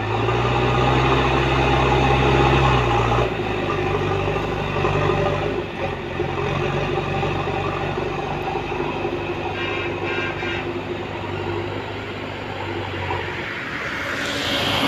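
JCB 3DX backhoe loader's diesel engine working under load as the front loader bucket pushes into a pile of soil; it runs loudest for about the first three seconds, then settles to a steadier, lighter run. A brief hiss comes near the end.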